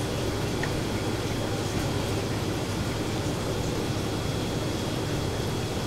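Steady low hum and rush of kitchen machinery, with a faint thin high whine held above it.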